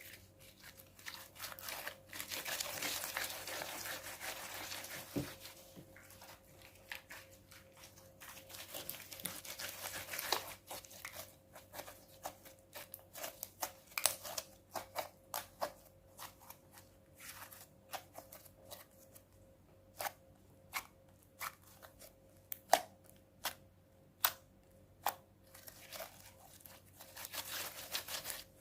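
Hands squishing and stretching a clear glue and borax slime: stretches of wet crackling, then a long run of sharp pops and clicks as air pockets in the slime burst.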